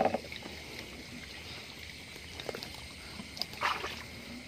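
Soft sloshing and rustling of someone wading through a shallow muddy canal among bankside grass, over a steady high chorus of night insects. There is a sharp knock at the very start and a louder splash-rustle about three and a half seconds in.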